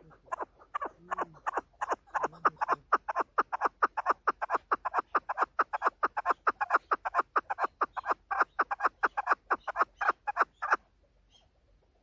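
Female chukar partridge calling: a fast, even run of short notes, about four or five a second, that stops abruptly near the end.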